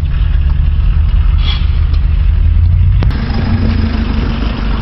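Low, steady engine and traffic rumble heard from inside a car. After a cut about three seconds in, the engine of a backhoe loader runs close by with a steady hum.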